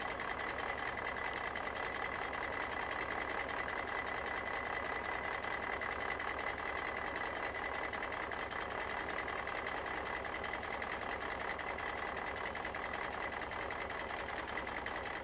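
Steady background hum with a faint high whine, unchanging throughout, with no distinct knocks or scrapes.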